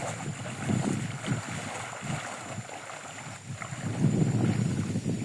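Water splashing and sloshing as someone bathes in a river, with wind rumbling on the microphone; the noise swells about four seconds in.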